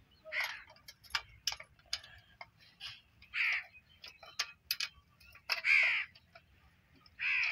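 Crows cawing several times in harsh calls. Between the caws come a few sharp metallic clicks, from a spanner working the stubborn blade nuts on a hand-cranked chaff cutter.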